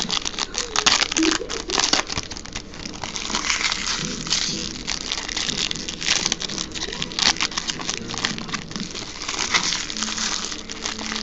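Foil wrappers of baseball card packs crinkling as they are handled and torn open by hand: a dense, irregular crackle.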